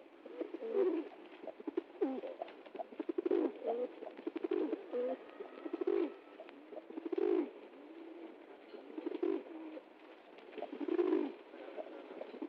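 Pigeons cooing, low throaty calls repeating every second or two.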